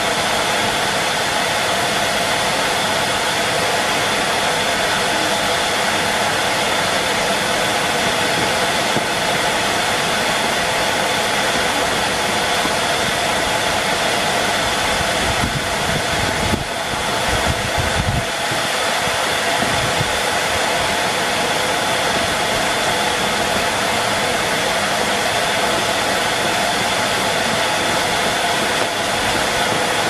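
Numatic Henry vacuum cleaner running steadily, a constant motor whine over rushing air, briefly wavering a little past halfway.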